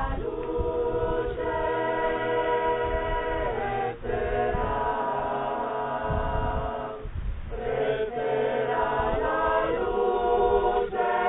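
A choir singing a cappella, holding long notes, with short pauses between phrases about four and seven seconds in.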